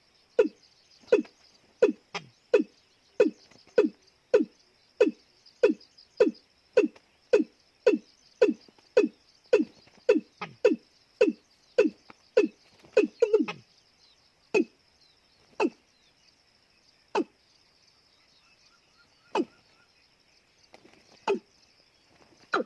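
Watercock calling: a run of deep, downward-falling 'kok' notes at about one and a half a second, slowing after about thirteen seconds to single notes one to two seconds apart. A steady high hiss runs underneath.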